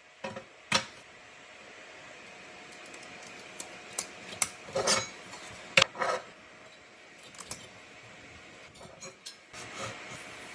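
Hard parts being handled and set down: a string of sharp clicks and clacks, bunched together around the middle, over a steady low hiss.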